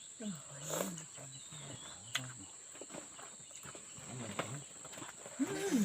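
Steady high-pitched insect drone, like crickets, with faint voices talking in the distance and scattered small clicks.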